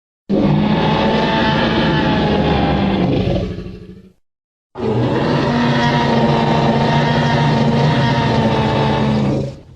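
Tyrannosaurus rex roar sound effect, played twice: a loud, sustained roar of about four seconds that fades out, a short silence, then a second, longer roar that cuts off quickly near the end.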